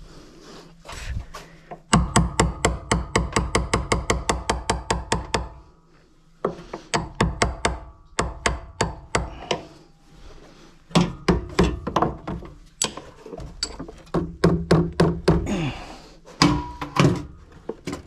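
Small hammer striking a flat punch to tap the mounting pins out of a Haier washing machine's suspension dampers: sharp ringing metal taps, a fast run of about six blows a second from about two seconds in, then several shorter runs of blows.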